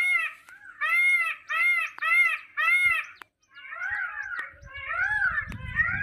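Indian peafowl calling in a rapid series of short calls, each rising then falling in pitch, about two a second. After a brief pause a little past halfway, the calls go on, overlapping one another, with a faint low rumble beneath.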